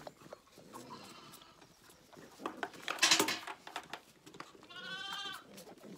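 Zwartbles lambs bleating, with a loud harsh call about halfway through and one clear, quavering bleat near the end.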